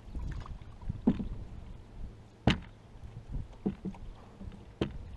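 Canoe being paddled with a wooden paddle: regular strokes, with a sharp knock about once a second, four in all, over a low rumble of water on the hull.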